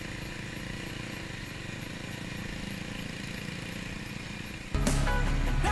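Bajaj Dominar 400's single-cylinder engine running steadily. About five seconds in, loud guitar music cuts in abruptly over it.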